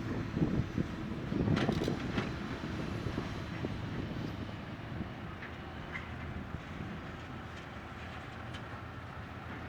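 Excavator's diesel engine rumbling as it works, with a few sharp knocks about two seconds in, then settling to a steadier, slightly quieter rumble.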